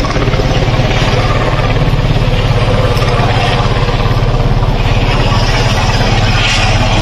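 Sikorsky S-92 helicopter flying past, its rotor beating in a rapid, steady chop over the drone of its engines.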